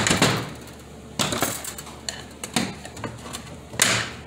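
Hand tools and steel parts clanking against a 4T40E automatic transmission's aluminium case and the workbench during teardown: four sharp metal clanks about a second apart, each ringing briefly.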